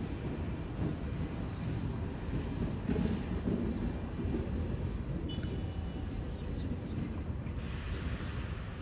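Train running on rails with a steady low rumble. Brief faint high-pitched squeals come about five seconds in.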